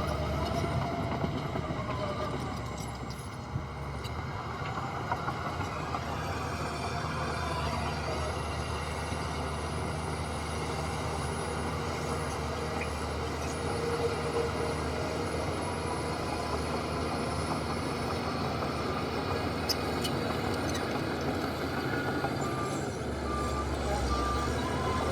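Diesel engines of heavy earthmoving machinery running steadily. Near the end a reversing alarm starts beeping at an even pace.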